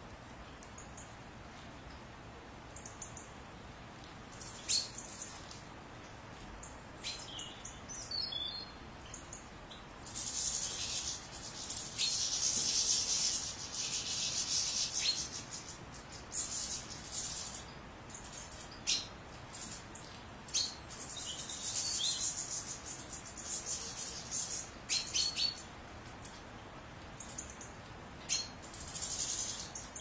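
European goldfinch song: high twittering in bursts lasting a few seconds, with short single call notes between them.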